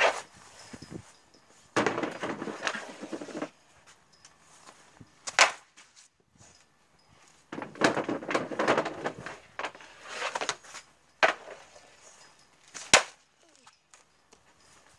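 Hockey shots: sharp cracks of a stick striking and the shot hitting the goal, about five seconds in and twice more near the end. Longer stretches of clatter and scraping lie between them.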